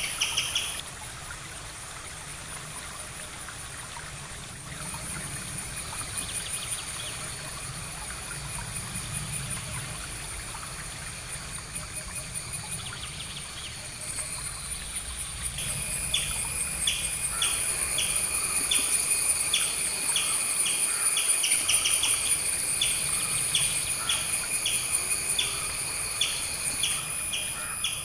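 A bird repeating a short chirping call about twice a second, joining in about halfway through over a steady high-pitched insect trill that runs throughout.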